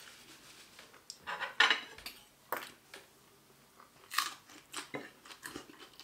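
Chewing and crunching of food at close range, with a few sharp clinks of a fork on a plate.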